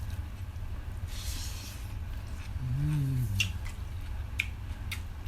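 Close-up eating sounds: wet chewing with a few sharp clicks and smacks in the second half, and a brief hummed "mm" near the middle, over a steady low room hum.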